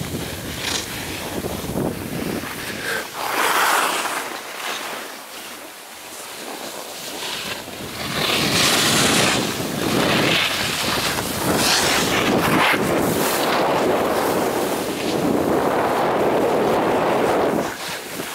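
Wind rushing over the microphone mixed with the hiss and scrape of a snowboard sliding and carving on snow, swelling and fading in long surges.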